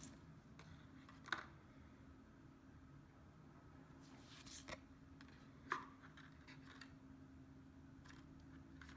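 Tarot cards being handled in a quiet room: a few soft clicks of card on card and a brief sliding rustle as cards are turned over and laid down.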